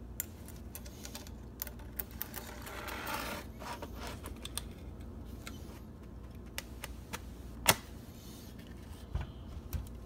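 Handling noise of a ram skull and its horn: scattered light clicks and knocks, with a rubbing scrape about three seconds in, as the keratin horn sheath is slid back onto the skull's bony horn core over epoxy. One sharper click stands out near the eight-second mark.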